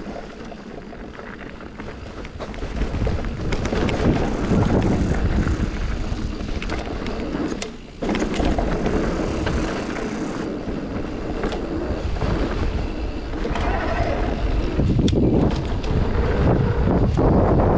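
Mountain bike riding over rough, muddy trail: wind buffets the camera microphone over the rumble of the tyres and the rattle of the bike, with sharp knocks throughout. It grows louder about three seconds in and again near the end, with a brief drop just before the middle.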